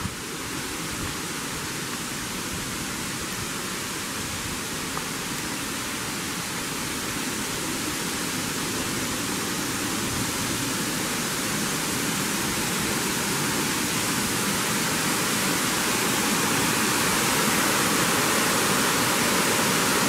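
Trahlyta Falls, a waterfall cascading over rocks: a steady rushing of water that grows gradually louder as it is approached.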